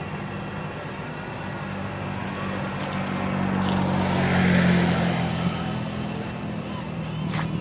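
A motor vehicle passing close on the road: its engine hum grows louder to a peak about halfway through, then fades away. A few sharp clicks are heard along with it.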